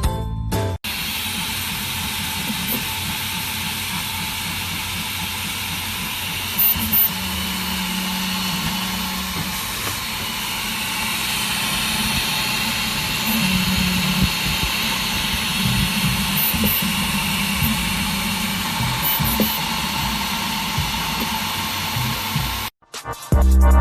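3D printer running: low motor tones shift in pitch in short stretches over a steady hiss.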